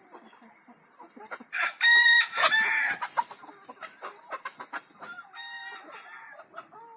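Desi village chickens: a rooster crows loudly about two seconds in, over hens clucking, and a second, softer call follows about five seconds in.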